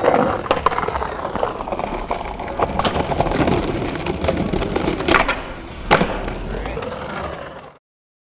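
Skateboard wheels rolling over brick pavers with a steady rumble and several sharp clacks along the way. The sound cuts off suddenly near the end.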